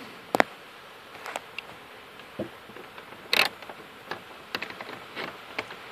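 Scattered light clicks from a small palm ratchet and hand handling as a dash panel bolt is turned out, with one louder click about three and a half seconds in.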